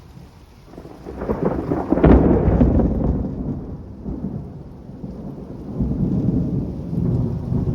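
Thunder from a close lightning strike: crackling from about a second in, a sharp crack about two seconds in, then a rolling rumble that swells again near the end, over steady rain.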